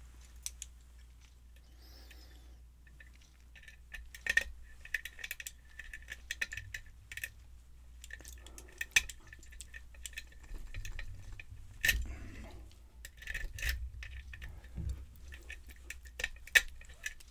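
A lock pick scraping and clicking against the pins inside a brass Yale pin-tumbler cylinder as it is picked under tension. After a few quiet seconds it becomes a quick, irregular run of small metallic clicks and scrapes.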